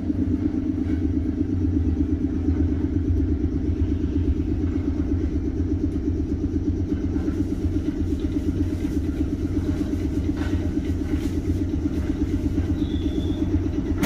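Underfloor machinery of a stopped 719 series electric train running with a steady, rapidly throbbing low hum. A brief high beep sounds near the end.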